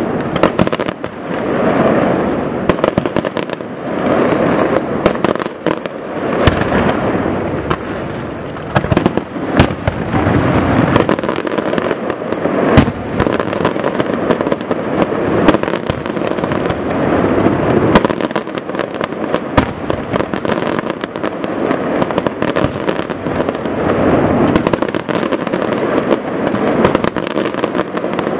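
Luigi Di Matteo aerial fireworks display firing a continuous barrage: shells bursting one after another, with many sharp bangs over a dense, unbroken wash of noise. The loudest bang comes about halfway through.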